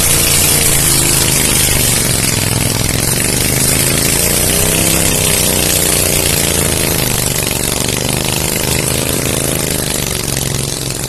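Boat engine running steadily, its pitch drifting gently up and down, over a constant hiss.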